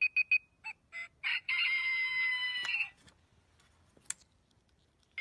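Xinjia XJ-768 talking wristwatch beeping three times, then playing its rooster-crow alarm sound from its small speaker for about a second and a half. A single click follows.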